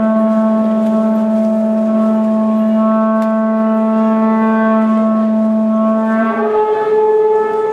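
Horagai conch-shell trumpets blown together in one long, steady low blast, which breaks off about six and a half seconds in and moves to a higher note.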